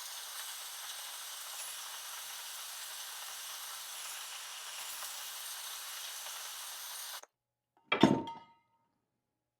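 MAP gas torch burning with a steady hiss, cutting off suddenly about seven seconds in; about a second later comes a single sharp metallic clank with brief ringing.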